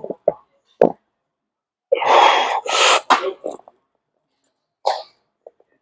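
Short, sharp breaths and one longer, loud, strained exhale about two seconds in, from a lifter pushing a loaded barbell up off his chest on a bench press.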